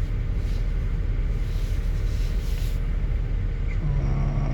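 2008 GMC Acadia's 3.6-litre V6 running with a steady low rumble while it misfires on several cylinders on one bank, the cause of the P0300 code and the shaking. A voice starts near the end.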